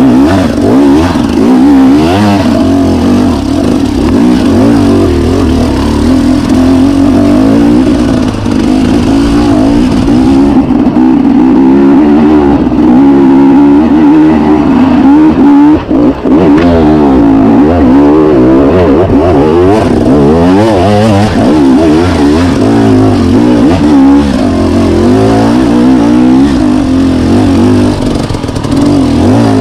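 Enduro dirt bike engine working hard uphill on a muddy trail, its pitch rising and falling constantly as the throttle is opened and eased. The sound dips briefly about two-thirds of the way through.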